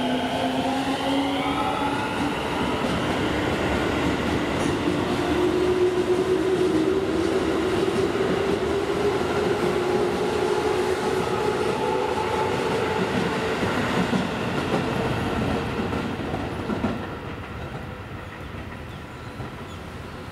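Keio electric commuter train accelerating away: the motor whine climbs in pitch in several steps, then settles into one slowly rising tone over the rumble and clatter of wheels on rail. The sound drops away sharply about 17 seconds in.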